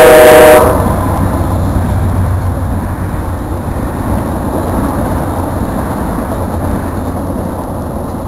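A diesel locomotive's air horn blasts a loud chord and cuts off just under a second in, leaving the low rumble of the train, which slowly dies away.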